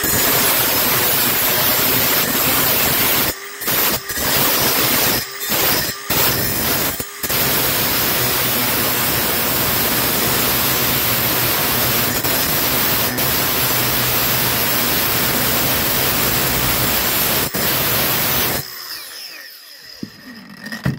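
Milwaukee M18 FUEL 6-inch brushless cordless angle grinder grinding a broken steel stub off a rusty post. The loud grinding breaks off briefly a few times in the first seven seconds. About three seconds before the end the grinder is switched off and the disc spins down with a falling whine.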